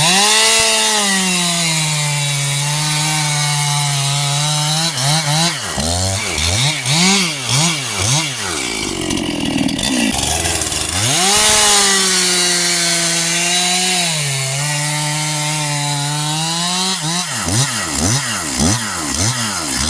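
Two-stroke chainsaw cutting wood at full throttle: twice the engine pitch settles lower and holds steady under load for several seconds. Between and after the cuts the throttle is blipped rapidly up and down in quick revs.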